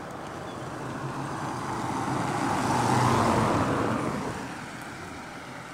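A car driving past, its engine and tyre noise growing louder to a peak about halfway through and then fading away.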